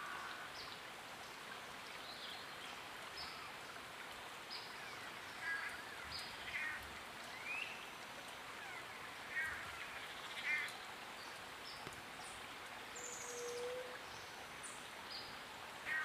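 Long-tailed manakins calling during their courtship dance display: short bursts of repeated calls, four louder ones in the middle stretch, with scattered brief high chirps over a steady forest hiss.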